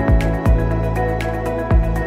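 Background music: sustained chords over a steady beat of low drum hits and light ticks.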